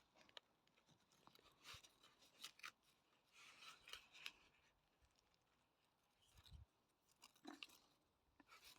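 Faint, irregular scraping and crunching of potting soil being dug away by hand around a large garlic bulb in a plant pot.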